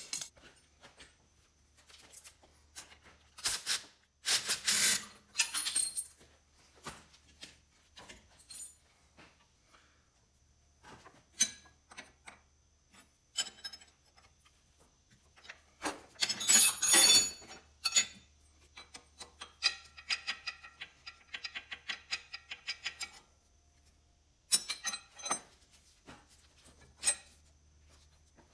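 Steel wrenches clinking, tapping and scraping against hydraulic line fittings on a compact tractor's valve as the fittings are worked loose or tightened. There is a louder clatter a little past the middle, then a run of quick, even ticks.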